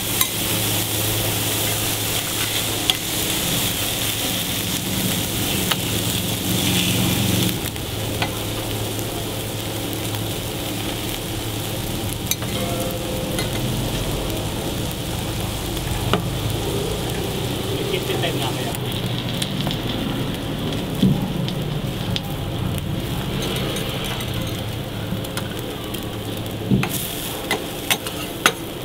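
Food sizzling on a flat-top griddle: diced meat and onions, burger patties and eggs in steel ring molds frying steadily, with occasional sharp clicks and scrapes of a metal spatula on the steel plate.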